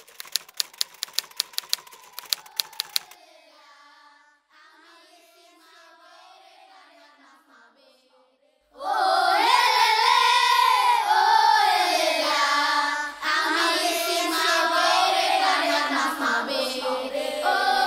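A quick run of typewriter key clicks, about four or five a second, for the first three seconds. Faint singing follows, and from about nine seconds in a group of children sings loudly.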